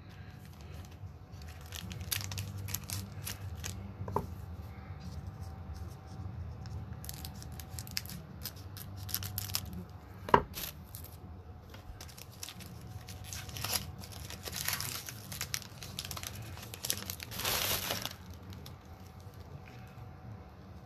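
Crinkling and tearing of a foil trading-card pack wrapper being opened and handled, an Upper Deck hockey card pack, in scattered bursts of rustle with one sharp click partway through and a denser stretch of crinkling near the end.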